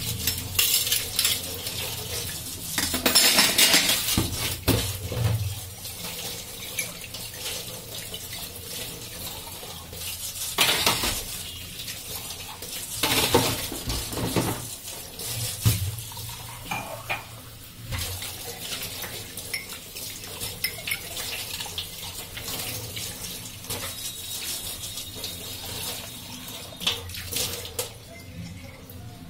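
Cold water running from a kitchen tap into a stainless steel sink as steel spoons, a ladle and cups are rinsed by hand, with repeated clinks and clatters of utensils against each other and the sink. The running water stops near the end.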